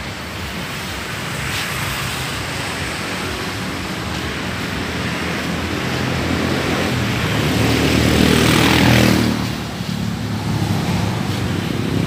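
Street traffic, with a motor vehicle's engine passing close: it grows louder to a peak about nine seconds in, then fades quickly.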